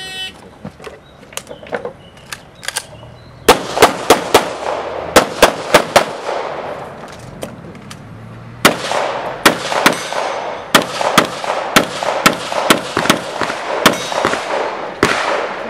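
Electronic shot timer beeps once, then a competition pistol fires rapid strings of shots, each with a ringing echo off the range berms. A quick burst of about eight shots comes a few seconds after the beep, then a pause of about two seconds, then a long run of shots fired at a fast, fairly even pace.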